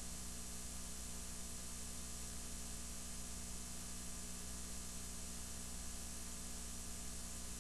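Steady hiss with a low electrical mains hum, unchanging throughout: the line noise of a blank videotape playback with no programme sound.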